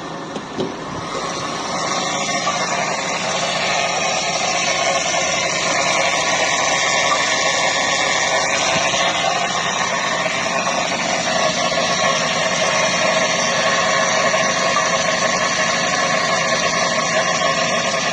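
Chevrolet Aveo's new power steering pump humming and gurgling over the idling engine, growing louder about two seconds in and then holding steady.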